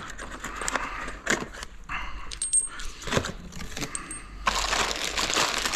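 Small metal parts, the new wheel bearing and bolts, clinking and rattling as they are handled, in a run of short sharp clicks. About four and a half seconds in, a steady rustle begins.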